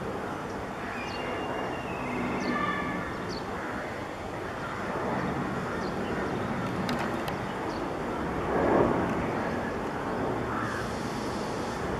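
Boeing 737-800 on final approach with gear down, its CFM56 jet engines a steady rumble mixed into a background of urban traffic noise. Brief horn-like tones sound in the first few seconds, and a short swell of noise comes near the end.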